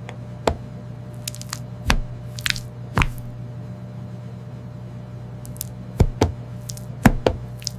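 Soft, sticky mochi dough being kneaded and folded: a handful of short squishes and taps at irregular intervals, over a steady low hum.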